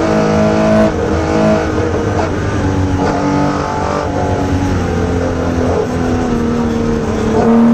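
Porsche 911 RSR's flat-six engine heard from inside the rally car's cabin, driven hard. The engine note drops and climbs again twice in the first couple of seconds, as with quick gear changes, then holds fairly steady, swelling louder near the end.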